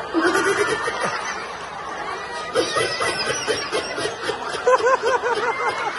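Several people laughing and chattering, with one voice breaking into a quick run of repeated 'ha' laughs in the second half.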